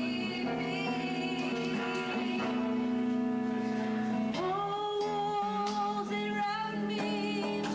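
Music: a singer holding long notes with vibrato over a plucked guitar accompaniment.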